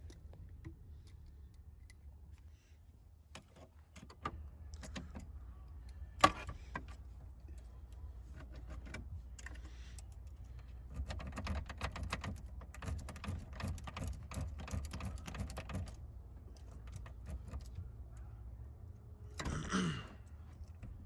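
Small metal locksmith tools clicking and rattling in a 1994 Chevrolet Silverado's ignition lock, raking its one-sided wafers to turn the cylinder. There is one sharp click about six seconds in, then a dense run of quick clicks for several seconds in the middle.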